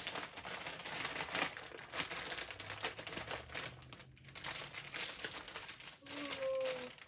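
Continuous crinkling and crunching, many small crackles close to the microphone, from handling and eating Fritos corn chips.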